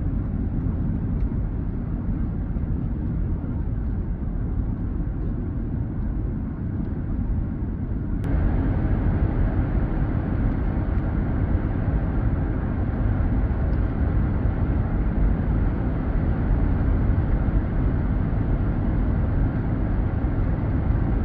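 Steady road and engine noise inside a car cruising at highway speed, a low rumble that steps up louder and fuller about eight seconds in.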